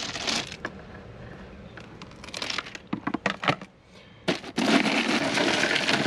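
Crushed ice crunching and shifting in a plastic cooler as a hand digs through it. There are scattered sharp crunches mid-way, then a steady rush of sliding ice from about four and a half seconds in as a whole hogfish is pulled out of it.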